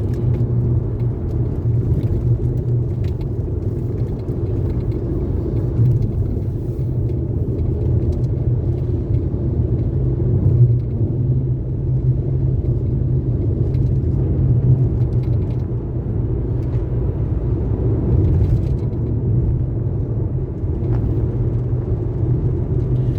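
Car driving along a road, heard from inside the cabin: a steady low rumble of engine and tyres on the road.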